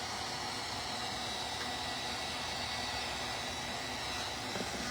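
Steady blowing hum of a handheld electric hot-air blower, with a faint high whine.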